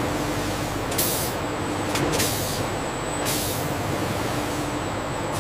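Steady factory machinery hum with short bursts of air hiss, like pneumatic valves venting, about a second and two seconds in and again a little past three seconds.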